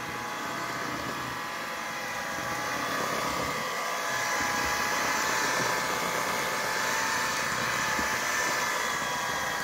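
Electric hand mixer running steadily, a motor whine as its beaters mix flour into cake batter in a stainless steel bowl, getting a little louder about three to four seconds in.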